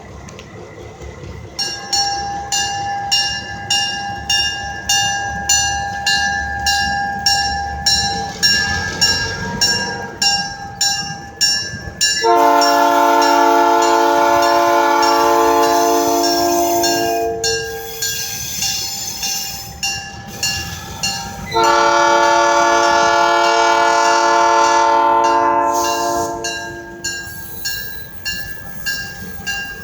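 A bell rings steadily at about one and a half strikes a second. From about 12 seconds in, a diesel locomotive's multi-chime air horn sounds long blasts, with a pause between them and another blast starting near the end.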